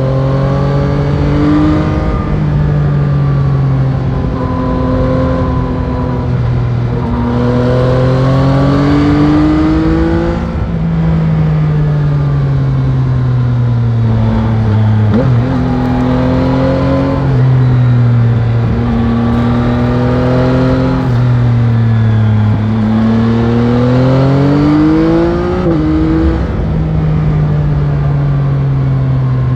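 Yamaha Tracer 9 GT's stock CP3 890 cc inline-three engine running under way, its revs climbing in long pulls and dropping sharply several times, over a steady rush of wind and road noise.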